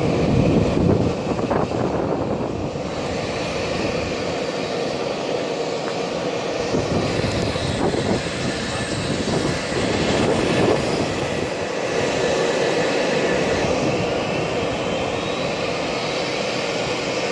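Bombardier CRJ-200 regional jet with its General Electric CF34 turbofans: a steady jet rumble, with a whine rising in pitch over the last few seconds as an engine spools up during the start sequence.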